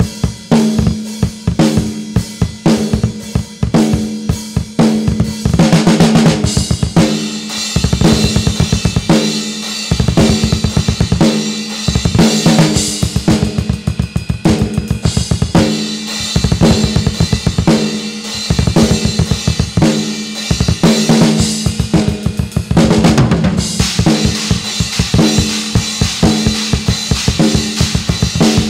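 Acoustic drum kit played hard in a heavy metal beat: snare, toms and crashing cymbals over bass drum strokes, with several stretches of very rapid double-kick runs.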